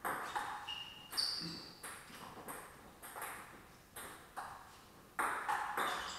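Table tennis ball clicking off bats and the table: sharp ticks about every half second at first, thinning out mid-way, then coming quickly again as a new rally starts near the end.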